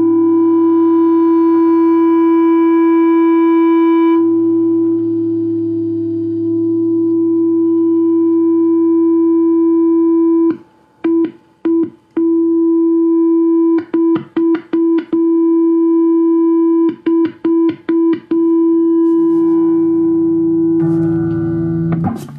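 Semi-hollow electric guitar feeding back through an amplifier: one sustained, steady feedback tone, chopped on and off in quick stutters three times as the guitar's controls are worked. Near the end the tone breaks up into rougher, shifting feedback.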